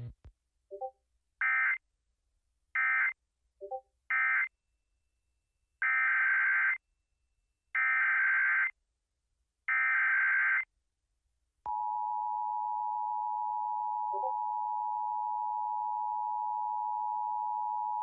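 Emergency Alert System data bursts: three short warbling end-of-message bursts, then three longer SAME header bursts about two seconds apart. Just under halfway through they give way to the steady two-tone attention signal that announces the next warning.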